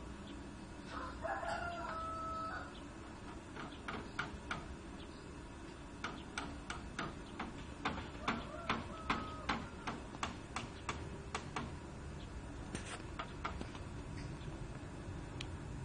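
A rooster crows once, a held call about a second in, followed by a run of short, sharp clicks.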